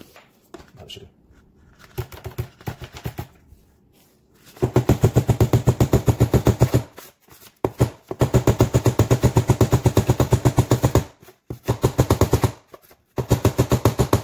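Claw hammer driving 18-gauge, 1-inch brad nails into kitchen cabinet base trim, sped up. A few light taps come first, then long runs of rapid, evenly spaced strikes, about seven a second, with short breaks between.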